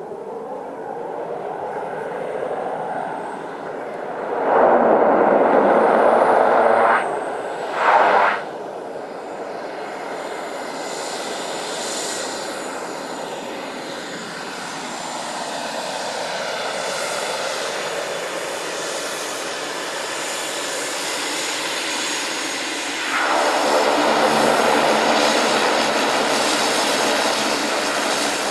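Single-engine turboprop airplane running through its landing roll on a snowy uphill runway, with two loud rushing surges about five and eight seconds in. It grows louder and more tonal near the end as the plane comes close.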